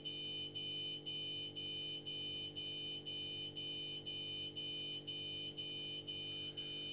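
Pick-and-place machine sounding a continuous high alarm beep that breaks off briefly about twice a second, over a steady low machine hum. It is a fault alarm: a cable had slipped out of the machine's mainboard.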